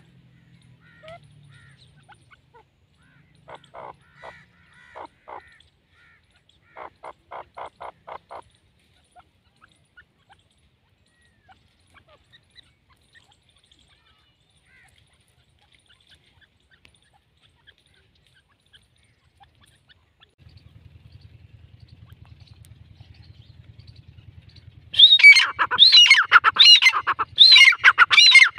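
Grey francolins calling: a few faint notes and a quick series of short chirps early, a low hum, then near the end the loud territorial call starts up as a fast, rhythmic run of rising-and-falling notes.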